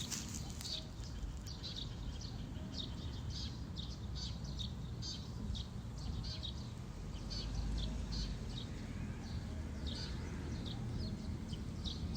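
Small birds chirping: many short, high chirps repeating about twice a second, over a steady low rumble.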